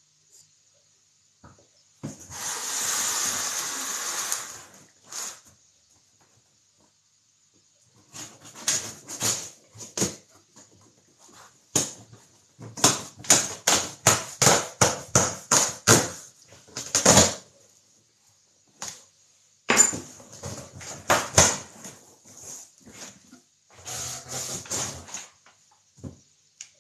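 A large cardboard box being handled on a wooden worktop: a long scrape, then a run of quick knocks, bumps and rustles of the cardboard.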